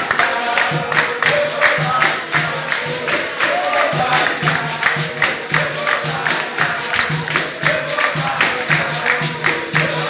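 Capoeira roda music: pandeiros and hand percussion keeping a quick, steady rhythm of sharp strikes over a repeating low beat, with voices singing.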